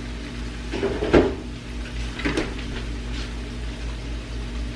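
Refrigerator door swung shut with a thump about a second in, then a lighter knock a second later, over a steady low hum.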